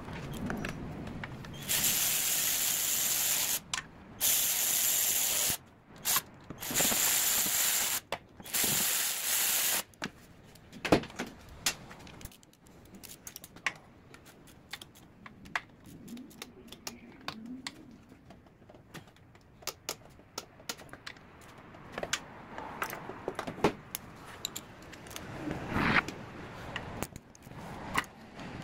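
Four hissing bursts of pressurised spray, each a second or two long, in the first ten seconds, then scattered clicks and clinks of hand tools on the car's underbody, with a ratchet working.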